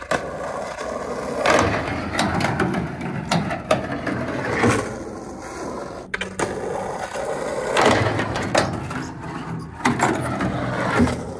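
Skateboard wheels rolling over a concrete skate park surface, with about ten sharp clacks and knocks of the board against the ground, and the board knocking onto a ledge near the end.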